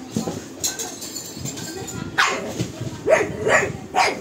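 A pug barking: a string of short, sharp barks, sparse at first, then four in quick succession in the last two seconds.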